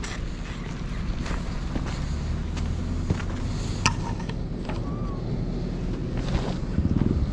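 Motorcycle engine running steadily with wind buffeting the microphone. Near the end the engine picks up into a louder, rapid pulsing.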